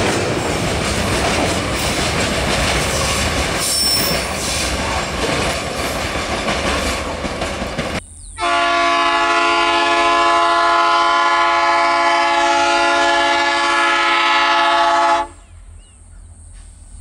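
Freight train of tank cars rolling past close by, its wheels clattering over the rail joints. Then a diesel locomotive's multi-chime air horn blows one long steady blast of about seven seconds and cuts off, sounded as a warning for the level crossing.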